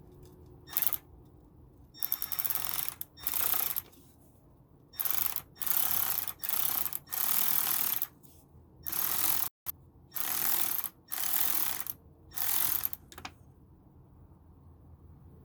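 Hand ratchet wrench cranked in repeated short spells of rapid clicking, about ten of them, stopping a couple of seconds before the end.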